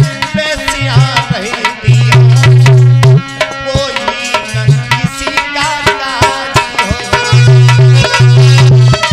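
A man singing a Hindi devotional verse, his voice gliding and ornamenting, to a hand-drum accompaniment with regular drum strokes and held low instrumental notes.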